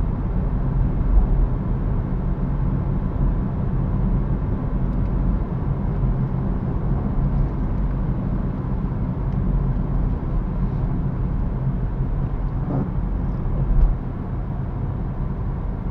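Car driving steadily at road speed, heard from inside the cabin: a continuous low rumble of engine and tyres on the road, easing a little about fourteen seconds in.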